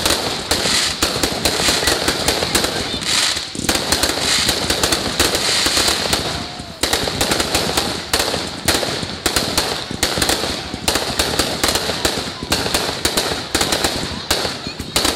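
Aerial fireworks going off in a continuous barrage: a dense, irregular run of sharp bangs and pops, several a second, without a break.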